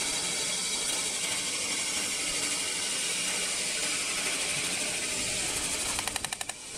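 CNC double-roller metal spinning machine forming a spinning sheet-metal workpiece, the roller pressing on the metal: a steady hiss with high thin tones in it. Near the end it breaks into a rapid flutter of pulses while the level dips.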